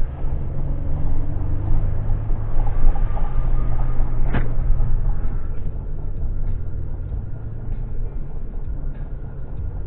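Inside a moving car's cabin: a steady low rumble of tyre and engine noise at highway driving speed. A single sharp click comes about four seconds in.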